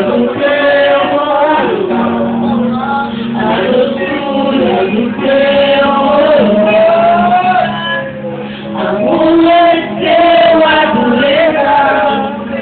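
Amplified worship singing: a woman sings into a microphone with other voices joining, drawing out long held and sliding notes over a sustained low accompaniment.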